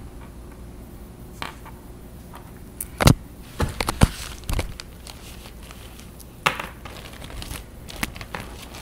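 Handling noise: scattered sharp knocks and clatters with some rustling, the loudest cluster about three to four seconds in and a few more near the end.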